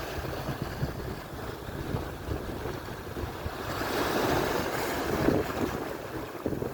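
Atlantic surf washing on the shore, with a wave swelling and breaking about four seconds in. Wind rumbles on the microphone.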